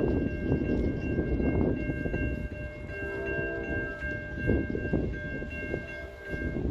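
Railroad grade-crossing warning bells ringing steadily as the gates come down, over an irregular gusty rumbling. From about three seconds in, a distant approaching train's horn sounds for several seconds.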